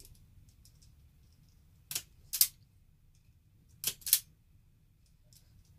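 Sharp clicks in three pairs about two seconds apart, the two clicks of each pair a fraction of a second apart.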